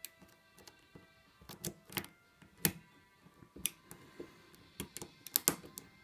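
Metal lock pick clicking irregularly against the wafers inside a Nissan car lock cylinder as it is single-pin picked under tension: a dozen or so sharp, uneven clicks and taps, the loudest about two and a half seconds in and again near five and a half seconds.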